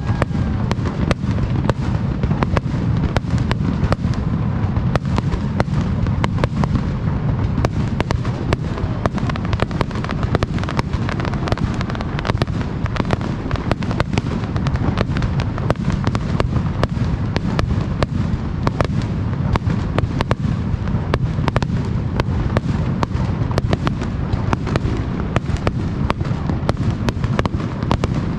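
Aerial fireworks display: a dense, unbroken barrage of shell bursts, many sharp cracks a second over a continuous low rumble.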